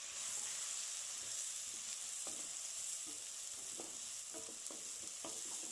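Freshly added chopped onions sizzling in hot oil, a steady frying hiss as they cook toward light brown. A wooden spatula stirs them, with a few light scrapes in the second half.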